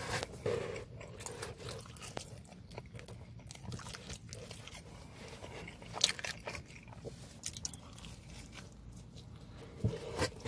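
A person chewing and biting pepperoni pizza close to the microphone, with many small clicks from the mouth and the crust, and one louder click about six seconds in.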